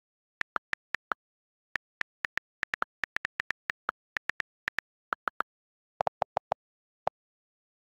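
iPad on-screen keyboard key-click sounds as text is typed: a quick run of short, crisp ticks with a brief pause about a second in. About six seconds in a few lower-pitched clicks come from other keys.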